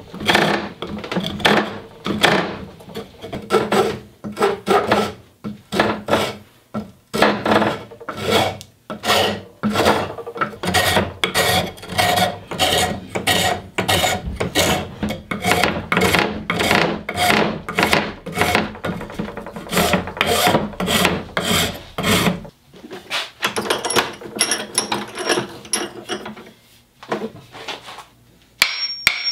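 Japanese saw rasp filing a wooden axe handle, in steady back-and-forth strokes about two a second, to thin the handle to fit the axe head's eye. The strokes stop about three quarters of the way through.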